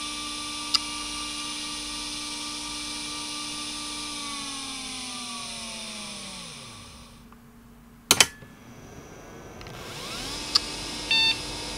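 Areal Technology A260 2.5-inch hard drive spinning at about 3000 rpm with a steady whine and a soft click about a second in. About four seconds in it spins down, and the whine glides down in pitch until it stops. About eight seconds in comes a loud double click, then the whine rises again as the drive spins up, with a click and a short beep near the end.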